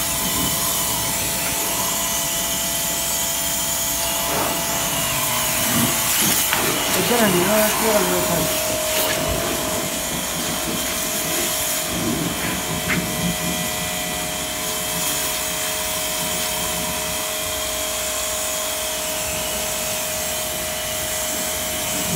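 Pressure washer running steadily with a constant whine, its water jet hissing against a jeep's wheel and bodywork.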